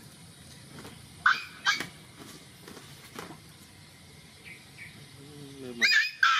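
Young puppies whimpering and yipping: a couple of short high-pitched cries about a second in, then a run of louder cries near the end.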